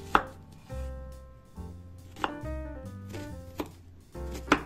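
Chef's knife cutting through a peeled onion onto a wooden cutting board: about four sharp knocks of the blade meeting the board, the loudest just after the start and near the end. Background music plays underneath.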